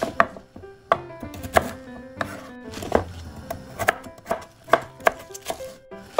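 Kitchen knife chopping Chinese broccoli (gai lan) stems on a wooden cutting board: about ten crisp cuts, one every half second or so.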